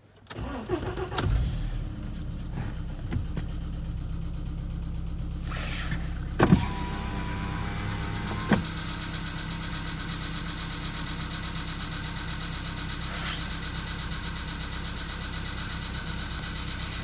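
Cold start of a Volkswagen Polo Sedan's 1.6-litre CFNA four-cylinder petrol engine at a few degrees below freezing. It turns over and catches within about the first two seconds, then settles into a steady cold idle, with two sharp clicks about six and eight and a half seconds in. The owner says the engine knocks when cold, which he puts down to the hydraulic lifters.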